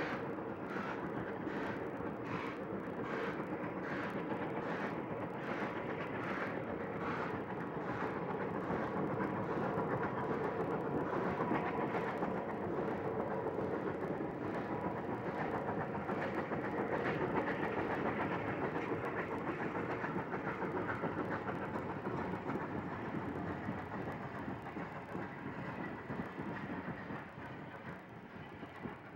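Bulleid air-smoothed Pacific steam locomotive hauling a passenger train past: exhaust beats at about one and a half a second at first, merging into a steady rush of exhaust and wheels on rail as it draws level, then fading as it moves away.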